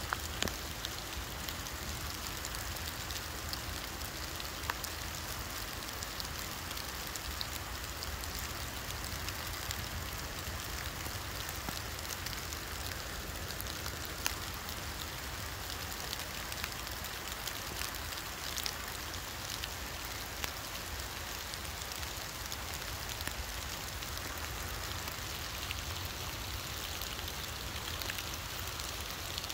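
Steady rain pattering, with scattered ticks of single drops.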